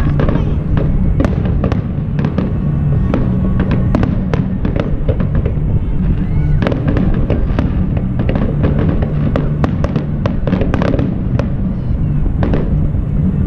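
Fireworks display: aerial shells bursting in a rapid run of sharp bangs and crackles, thickest near the end.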